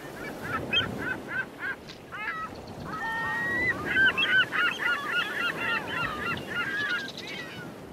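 A pack of foxhounds in full cry: a few short, evenly spaced calls at first, then many baying voices overlapping from about three seconds in.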